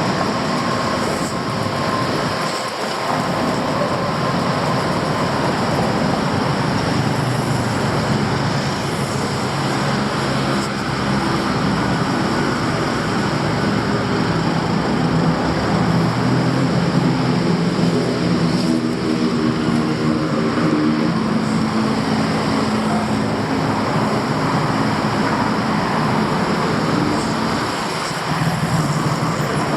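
Steady, loud city traffic noise with a heavy vehicle's engine hum that rises and falls in pitch through the middle stretch.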